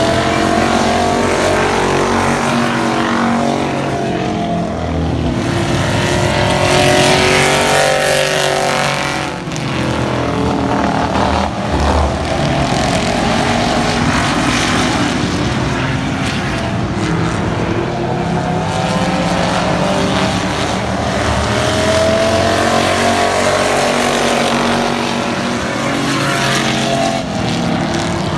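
Several stock race cars' engines running hard around an oval track. Their overlapping engine notes rise and fall as the cars come past and move away, loud throughout.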